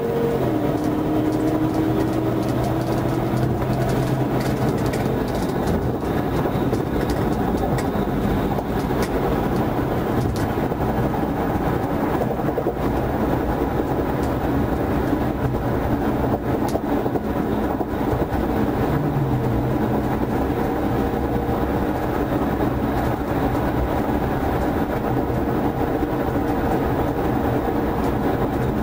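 Inside a patrol car's cabin at high highway speed: steady, loud road and wind noise over the engine's drone, with the engine note dropping once just after the start.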